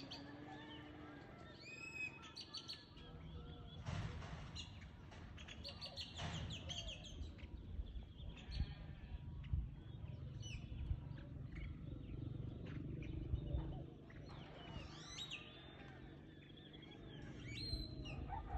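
Small birds chirping and calling repeatedly, short quick chirps over a low background rumble, with a few brief knocks.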